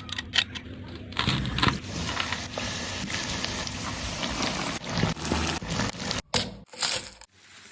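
Spring rolls deep-frying in hot oil: a steady crackling sizzle that sets in about a second in, with louder uneven crackles later and short breaks near the end.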